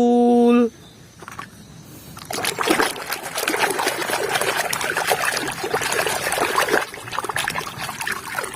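Water splashing and trickling while a toy is washed, building up about two seconds in and continuing as a busy, crackly wash of sound.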